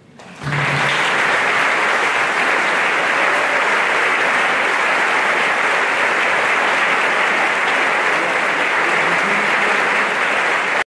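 Audience applauding: the clapping starts about half a second in and then carries on steadily.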